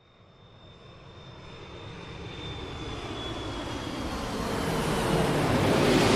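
Airplane approaching for a flyover, its engine noise growing steadily louder from faint, with a thin high whine that slowly drops in pitch.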